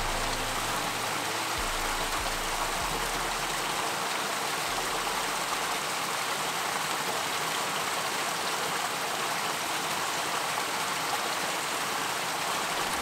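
Water falling in a small cascade and splashing into a pool: a steady rushing splash.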